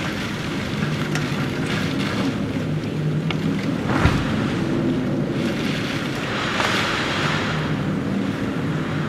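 Typhoon wind and heavy rain: a steady dense rushing with wind buffeting the microphone, a sharp knock about four seconds in, and a louder gust near seven seconds. A faint low hum comes and goes underneath.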